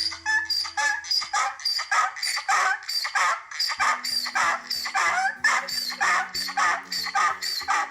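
Upbeat background music: quick, rhythmic chopped sounds with bending pitch, with sustained bass notes coming in about halfway through.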